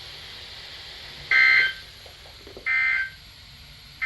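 EAS end-of-message data bursts from a NOAA Weather Radio receiver's speaker, marking the end of the warning broadcast. Two short buzzing digital tone bursts about 1.4 s apart, the first about a second and a quarter in, with a third starting at the very end, over faint radio hiss.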